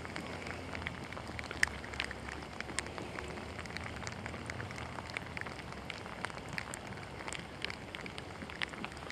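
Steady rain falling, with many short sharp ticks of drops landing close by at irregular intervals.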